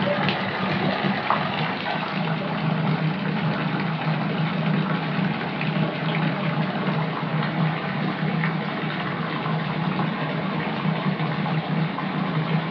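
Tap water pouring steadily into a filling bathtub, a continuous rushing splash with a steady low hum underneath.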